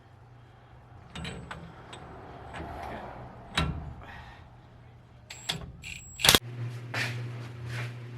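Scattered clicks and knocks of tools and parts being handled during differential pinion work, ending in a sharp knock about six seconds in.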